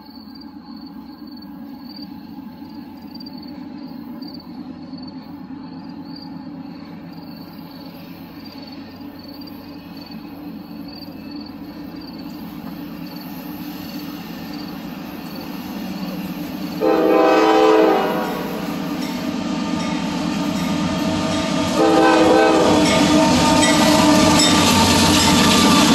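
Diesel locomotives of a CSX freight train approaching and passing: a low engine rumble grows steadily louder. The lead locomotive's horn sounds a short blast about 17 seconds in, then a longer one from about 22 seconds that carries on as the locomotives go by close up.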